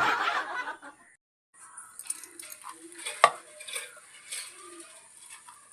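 Kitchen utensils clinking and scraping, as in stirring or handling dishes, with light scattered clicks and one sharper knock about three seconds in.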